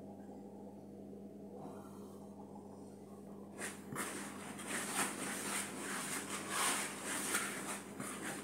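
Dry acorn couscous grains rustling irregularly as they are poured and handled in a dish, starting about three and a half seconds in. A steady low electrical hum runs underneath.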